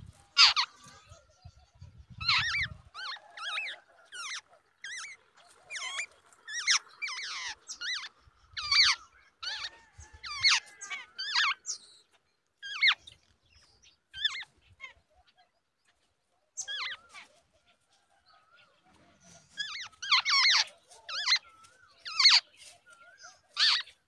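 Jungle babblers calling at the nest: a long run of short, shrill, squeaky calls, each a quick downward sweep, coming in clusters with a lull of a few seconds past the middle.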